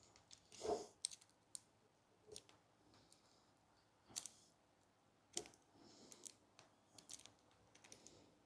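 Faint, irregular small clicks and rustles of hands working the new Dyneema line and the kite bar's PU tube.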